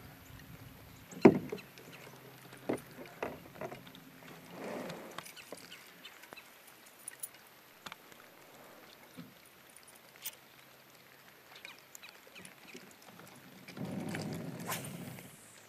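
Knocks and clatter on an aluminum jon boat's hull as an angler moves about in it: one sharp bang about a second in, a few lighter knocks over the next couple of seconds, then scattered faint clicks and a short rushing noise near the end.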